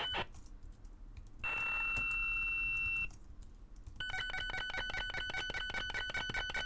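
Electronic synthesizer tones from a SuperCollider HenonL chaotic-map oscillator: a high, steady, ringing tone over a rapid clicking buzz. The sound changes abruptly several times as new parameters take effect. It drops to faint just after the start, holds a single high tone from about one and a half to three seconds, goes faint again, then comes back at about four seconds as a two-note buzzing chime.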